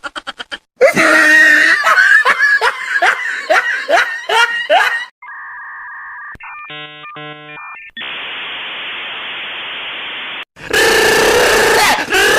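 A string of short meme sound effects cut together. It opens with a rapid stutter of pulses, then a voice cries out in repeated falling yells or laughs for about four seconds. A steady two-tone telephone-like tone follows, then a burst of stepped electronic beeps and a stretch of even hiss. Loud shouting or chaotic voices fill the last two seconds.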